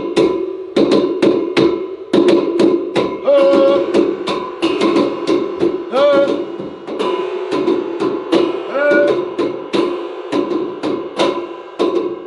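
Hands drumming a beat on the hollow metal rails of a canopy bed frame: quick slaps and taps, each leaving a ringing tone, with three short gliding tones mixed in.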